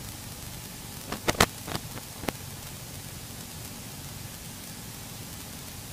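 Steady hiss of static on the cockpit headset intercom, with a quick run of four or five sharp clicks between about one and two and a half seconds in.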